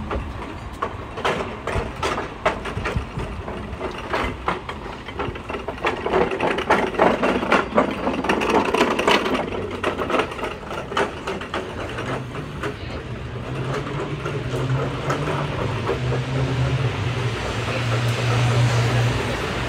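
Street traffic: irregular clattering knocks through the first half, then a motor vehicle's engine running with a steady low hum that grows louder toward the end.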